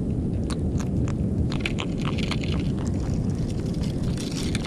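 Steady low rumble of wind on the camera microphone, with scattered small clicks and rustles as the fly rod, line and fish are handled.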